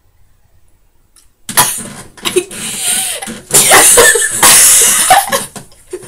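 A person's sneeze, brought on deliberately after minutes of trying, breaking out suddenly about a second and a half in, an odd-sounding one, followed by loud laughter.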